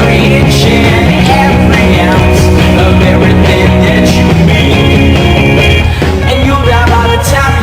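Loud rock music with guitars and a steady beat, with some singing.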